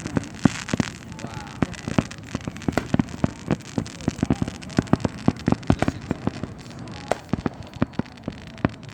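Fireworks going off: a dense, irregular run of sharp bangs and crackles, several a second, with no break.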